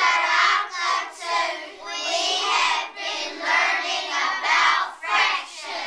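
A class of young children singing together in unison, in short rhythmic phrases.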